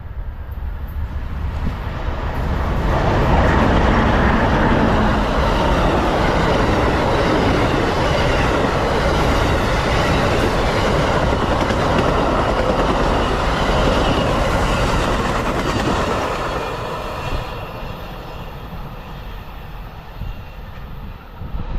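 Amtrak Silver Meteor passenger train passing by, its locomotive and cars rumbling over the rails. The sound builds over the first few seconds, stays loud, and fades away after about sixteen seconds.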